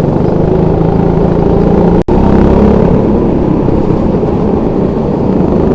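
Go-kart engine running hard at speed, with a brief sharp dropout in the sound about two seconds in.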